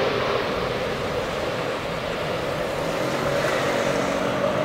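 Boeing 777 on final approach: the steady rumble and hiss of its twin turbofan engines, with a faint steady whine above it.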